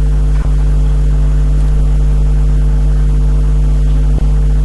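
Loud, steady low electrical mains hum with a buzz of higher overtones, interrupted by two brief clicks or dropouts, one about half a second in and one near the end.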